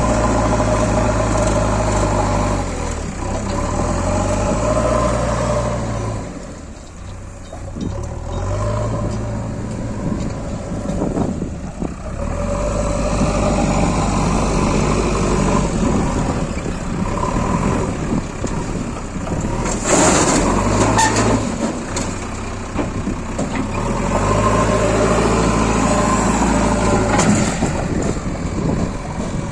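Heavy diesel engines of a backhoe loader and tractor running, the engine note dipping and rising as the loader works. There is a brief sharp hissing burst about twenty seconds in.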